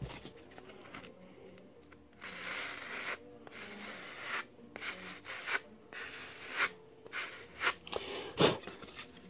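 Hand sanding bar rubbing along the cut edge of a balsa wood strip in about six strokes roughly a second apart, the last near the end the loudest. It is truing a knife-cut edge with some tear-out up to the marked line.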